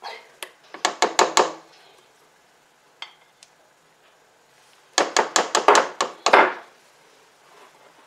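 A spatula rapped against the rim of a mixing bowl to knock batter off it: two quick runs of taps about four seconds apart, the second run longer.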